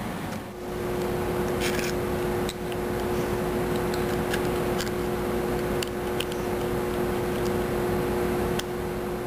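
A steady machine-like hum with two steady tones that start about half a second in, with a few faint clicks and taps from fingers handling the plastic frame and small parts of a KSC Glock 18C airsoft pistol.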